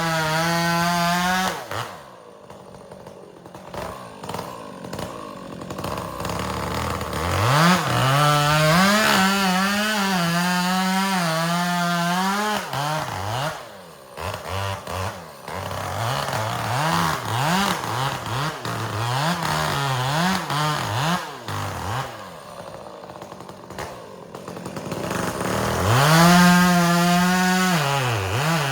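Two-stroke chainsaw bucking firewood. It revs to full throttle for cuts, its pitch wavering and sagging under load, and drops back to idle between them, with a run of short throttle blips in the middle.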